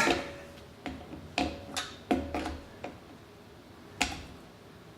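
Short clicks and knocks from forcing an M-style air plug into a stiff push-to-connect coupler on a pressurized compressor, mixed with short strained grunts; a sharper click about four seconds in.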